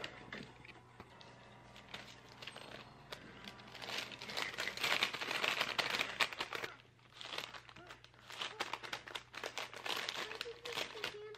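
Thin paper crinkling and rustling as it is folded and wrapped by hand, in two louder spells from about three and a half seconds in, with a short lull around seven seconds.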